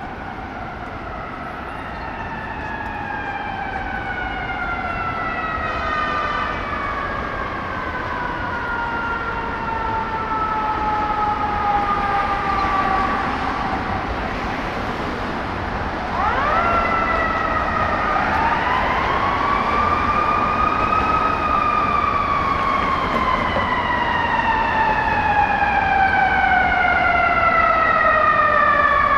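Emergency vehicle siren in long, slow glides. The pitch falls steadily for the first dozen seconds, shoots up again about sixteen seconds in, then rises and slowly falls once more. It grows louder throughout as the vehicle approaches, over steady city traffic noise.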